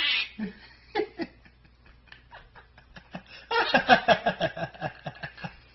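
Quaker parrot making scattered soft clicks and short chatter, then a rapid run of laugh-like syllables about three and a half seconds in.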